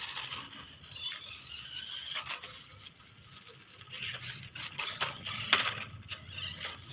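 Toy RC car running: its small electric drive motors whir while the plastic car clicks and rattles as it drives, quieter around the middle and picking up again after about four seconds.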